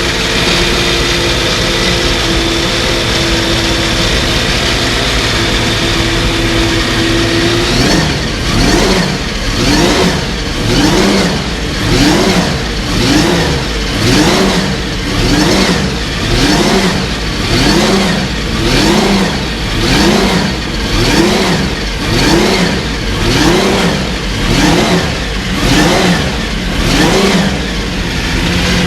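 Porsche 917's air-cooled flat-12 racing engine idling steadily, then, about eight seconds in, blipped over and over, rising and falling in pitch about every second and a quarter, before settling back to idle near the end.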